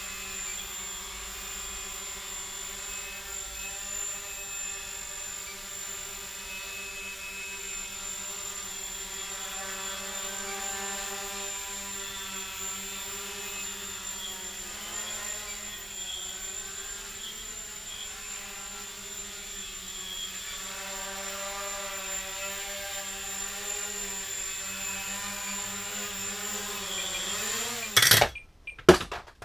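Small quadcopter's four brushless RC Tiger 1306 motors with 6x2 carbon-fibre props, hovering and flying with a steady multi-toned buzz whose pitch wavers slightly. Near the end the pitch bends, there are two sharp knocks, and the motors stop.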